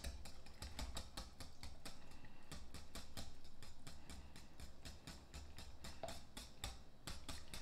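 Wire whisk beating barbecue sauce and grape jelly in a glass mixing bowl: a quick, regular ticking of the wires against the bowl, several strokes a second.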